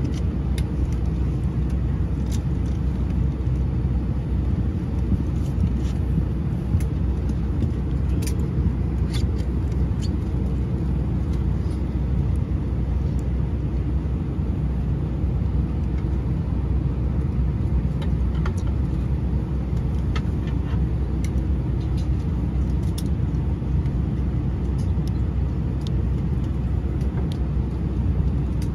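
Steady low rumble and hum inside the cabin of an Airbus A320-232 on the ground before departure, with a steady tone near 500 Hz and scattered faint clicks and ticks over the top.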